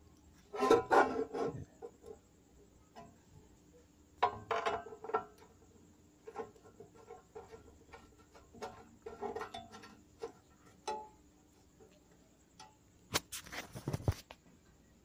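Knocks, taps and rattles from hands handling a cut-off machine's plastic guard and metal parts, in four short bursts spread through the clip, the first and last the loudest. The motor is not running.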